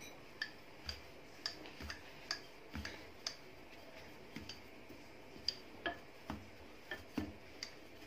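Rolling pin rolling out thin pizza dough on a stone countertop, giving a string of light, irregularly spaced clicks and knocks, about one to two a second, as the pin is pushed, lifted and set down.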